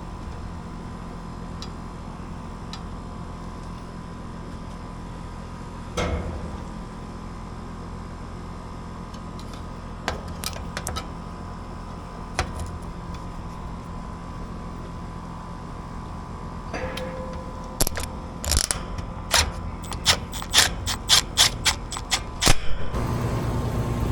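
Air-conditioner condenser unit humming with only its fan running, a few scattered clicks, then a quick run of sharp clicks and knocks from work on the unit. Near the end a louder, lower hum comes in: the compressor starting up after the swollen capacitor is replaced.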